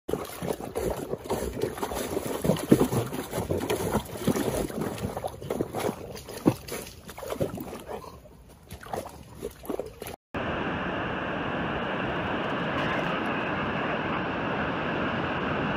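Yellow Labrador retriever splashing and wallowing in shallow muddy water: irregular splashes and sloshes that thin out near the end. About ten seconds in, this cuts to a steady rushing noise.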